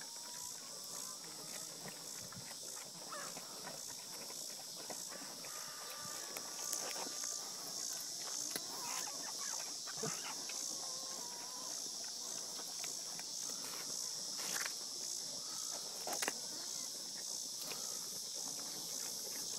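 A pig chewing sweet potato, with scattered short crunches and clicks, over a steady high-pitched hiss in the background.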